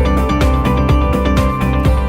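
Intro music with a steady beat: sustained synth-like notes over regular drum hits, about four strokes a second.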